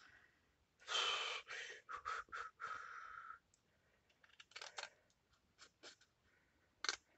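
Paper being handled and cut, with a few scraping cuts or rustles in the first half and scattered small clicks and taps of paper and tools after that.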